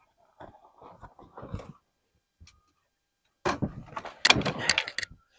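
Gear being handled in a small boat as a landing net is grabbed: scattered light knocks and rustling, then a louder run of clicks, knocks and rattles in the last two seconds.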